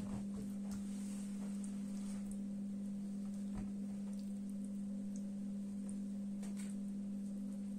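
A steady low hum at one pitch throughout, with a few faint soft clicks and taps as hands press and spread buttered yufka dough sheets on a wooden table.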